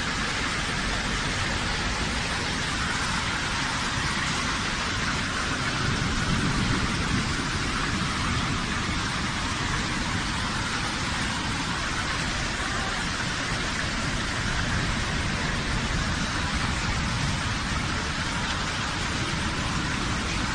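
Heavy hailstorm downpour beating steadily on surfaces, a dense, even hiss that does not let up.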